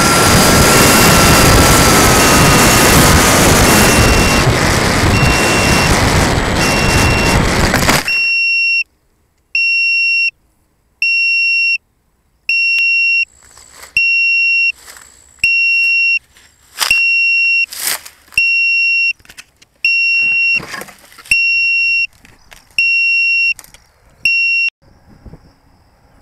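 RC plane's electric motor and propeller running hard with a slowly falling whine, cutting off abruptly about eight seconds in. Throughout, an electronic beeper gives a short high beep about every second and a half, typical of a model's low-battery or lost-model alarm. After the motor stops, scattered knocks and handling rustles come between the beeps.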